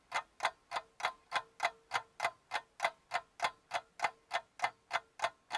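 Rapid, even ticking, about three ticks a second.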